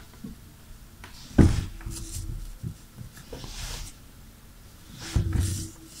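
Handling noise from pliers and a tissue-wrapped charger connector on a wooden tabletop: a sharp knock about one and a half seconds in, another near the end, and soft rustling of tissue paper in between.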